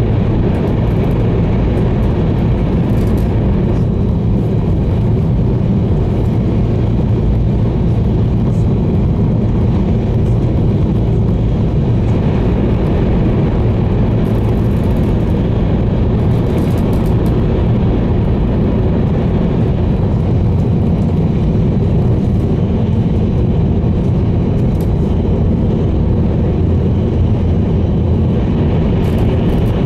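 Steady low rumble of an E2 series 1000 Shinkansen running at speed, heard inside the passenger cabin while the train passes through a tunnel.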